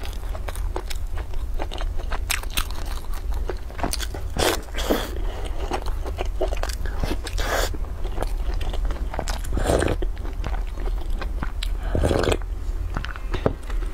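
Close-up mouth sounds of biting and chewing milk-soaked, sugar-coated twisted fried dough: many small wet clicks with a few louder bites. Near the end comes a louder sip or gulp from the mug of milk.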